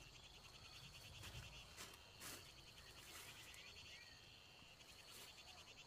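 Near silence, with a faint, rapidly pulsing animal chorus in the background.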